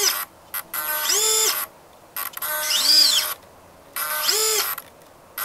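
An HV6130 flap servo whirring in short bursts, each whine rising then falling in pitch, about one a second, as the flap is pushed off centre by hand and the servo drives it back. The right flap servo is far too easily pushed off its centre position, which the owner takes for a problem with that servo.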